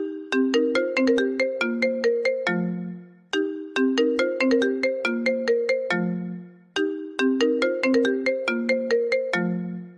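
iPhone ringtone playing: a short, bright melody of quick plucked notes that ends on a low held note, which fades before the phrase starts again. The phrase repeats about every three and a half seconds.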